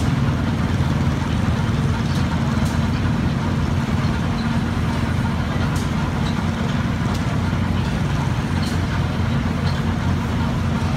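Sawmill machinery running, a steady low mechanical hum with a few faint light clicks.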